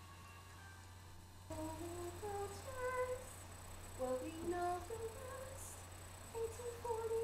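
A girl humming a wordless tune, starting about a second and a half in, over a faint steady low hum.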